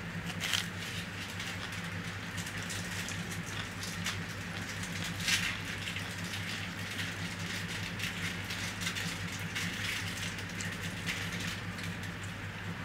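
Close-up eating sounds of rice and kadhi (yogurt curry) eaten by hand: wet chewing and lip smacking mixed with fingers squishing through the rice. It is a continuous run of small clicks and crackles, with two louder smacks about half a second in and near the middle.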